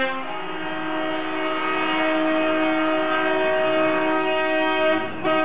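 Truck air horns held down, several sounding together as one steady, loud multi-note chord. The chord changes just after the start and breaks off briefly about five seconds in before sounding again.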